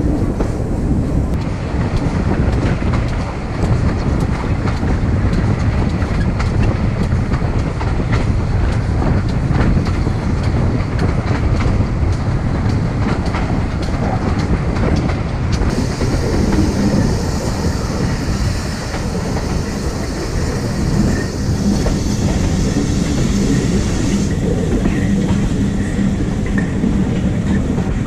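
Passenger coaches of a steam-hauled heritage train running along the line: a steady rumble, with the wheels clicking over rail joints. A higher hiss joins in about halfway through.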